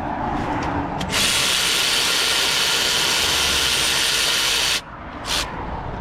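A handheld power tool spins steadily for nearly four seconds, starting about a second in and cutting off suddenly, followed by a short blip of the trigger.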